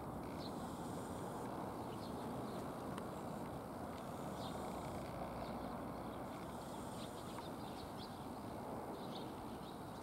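Steady outdoor background noise with no train passing, like a distant town's traffic hum, with faint short high chirps now and then.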